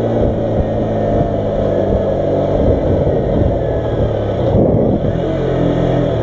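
KTM RC 125's single-cylinder 125 cc engine running steadily while the motorcycle is ridden along, mixed with rough wind rush.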